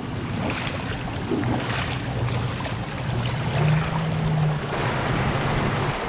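Rushing creek water, a steady noisy wash with wind buffeting the microphone. A low steady hum sounds through the middle for about three seconds.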